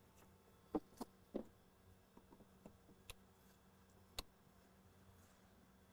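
Faint clicks and taps of a flathead screwdriver prying plastic push-pin fasteners out of a Polaris RZR's center console. Three clicks come in the first second and a half and one more about four seconds in.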